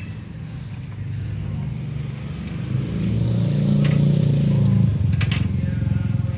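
Homebuilt helicopter's engine running, its drone growing louder and heavier from about three seconds in as it picks up.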